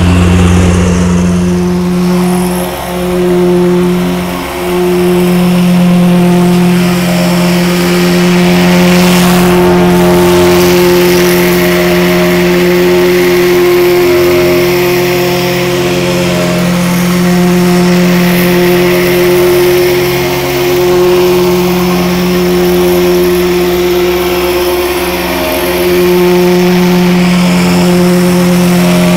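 Petrol-engine vibratory plate compactor running steadily at working speed while compacting sand, a constant engine drone with a couple of brief dips early on.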